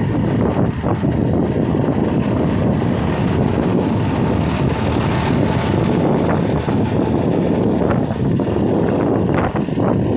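Wind rushing over the microphone of a moving vehicle, over the steady road noise of tyres on a wet road. A few faint clicks come near the end.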